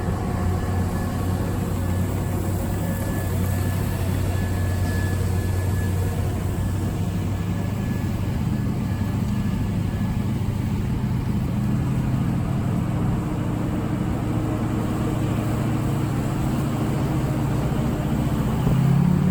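A vehicle engine running steadily with a low hum; right at the end it revs up, rising in pitch and getting louder.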